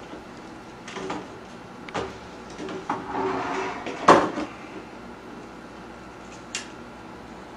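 Remote-controlled motorized curtain track: a few clicks, then a short sliding run about three seconds in that ends in a loud knock, and one more click later.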